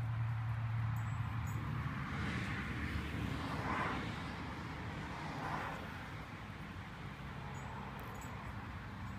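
Outdoor background noise: a steady low hum under a faint haze, swelling a little a few seconds in, like traffic or machinery running somewhere off the scene.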